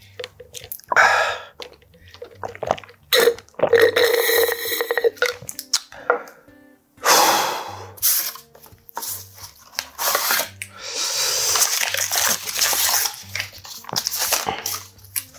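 Swallowing from a drink can, then a small cardboard snack box and its paper and foil wrapper being opened and torn, crinkling and rustling in bursts.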